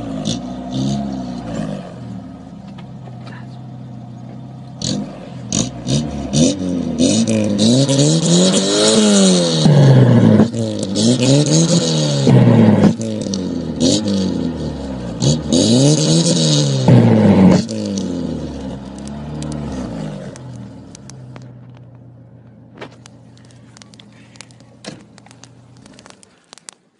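Car engine revved again and again, each rev rising and falling in pitch every two to three seconds, then dropping back to a low idle and fading away near the end. Sharp clicks run over it.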